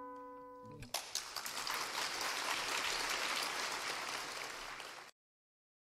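A final acoustic guitar chord rings and fades; about a second in, the audience breaks into applause, which cuts off suddenly near the end.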